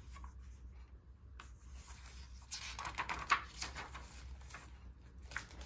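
Picture-book pages rustling as they are handled and turned, in soft scratchy strokes, the loudest about three seconds in.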